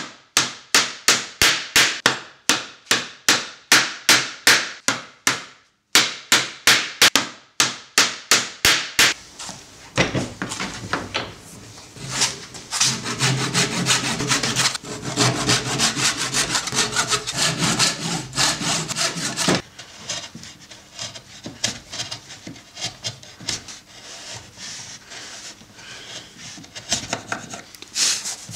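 A wooden mallet knocking on a solid-oak frame joint, about three sharp blows a second with a short break, for the first nine seconds or so. Then a hand backsaw cutting across the oak frame in steady rasping strokes, which turn lighter and quicker about two-thirds of the way through.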